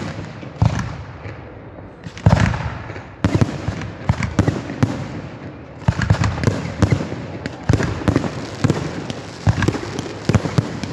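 Fireworks display: aerial shells bursting in a string of sharp bangs, each followed by a brief rumble. The loudest bang comes about two seconds in, and the bangs and crackling come thicker and faster from about six seconds in.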